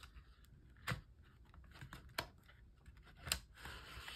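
Plastic-sleeved photocards clicking and tapping as a stack is pushed into a tight-fitting cardboard box, with a few sharp clicks, the loudest about three seconds in.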